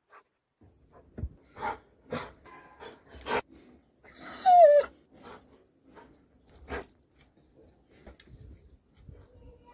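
Doberman giving one short whine that falls in pitch, about halfway through. Around it are several knocks close to the microphone as the dog's muzzle bumps the phone.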